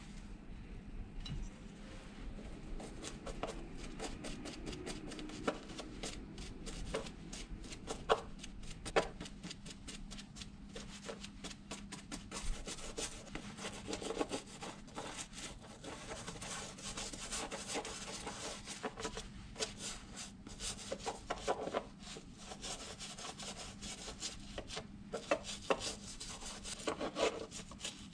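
A thin metal blade scraping and prying between a football boot's upper and its glued-on studded soleplate, an irregular run of rasping scrapes and small clicks as the old sole is worked loose.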